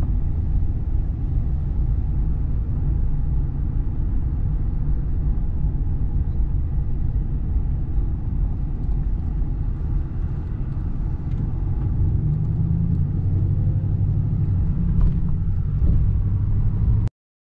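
Pickup truck driving, heard from inside the cab: a steady low rumble of engine and road noise. The engine hum grows stronger about twelve seconds in, and the sound cuts off suddenly near the end.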